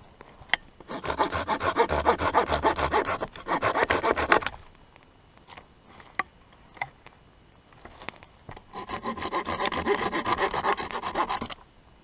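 Hand saw cutting through a wooden branch in quick back-and-forth strokes. There are two bouts of sawing, each about three seconds long, with a pause of several seconds between them.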